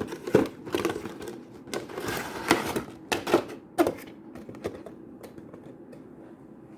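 Handling of a cardboard figure box and its plastic packaging: a run of clicks, crinkles and scrapes over the first four seconds, then fainter handling noise.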